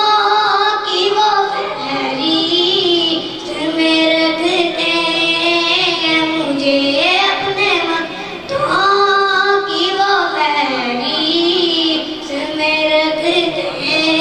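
A boy singing a naat, an Urdu devotional poem, into a microphone, in long drawn-out phrases of held and sliding notes with short breaths between them.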